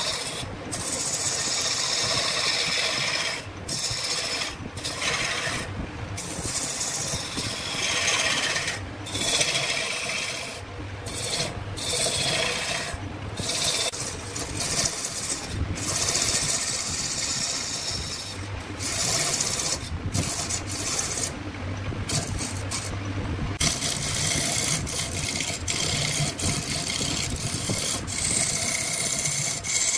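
Wood lathe with a hand tool scraping against the spinning wood, a steady rasping broken by many short pauses where the tool comes off the work.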